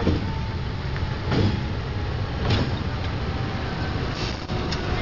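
CC 201 diesel-electric locomotive's engine running with a steady low rumble as the locomotive moves slowly. Three brief sharper noises cut across it: about a second in, halfway, and near the end.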